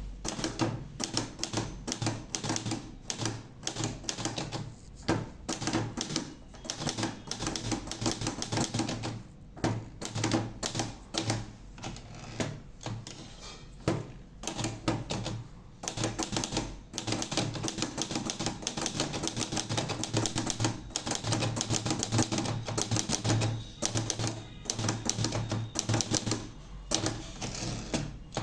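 Olivetti Lettera 32 manual portable typewriter being typed on: fast runs of key strikes clacking against the platen, in bursts broken by short pauses.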